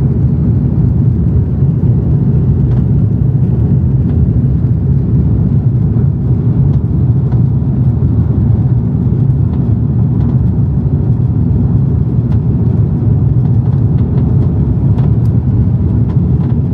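Jet airliner cabin noise during the climb just after takeoff: the engines and rushing air make a loud, steady, deep noise heard inside the cabin.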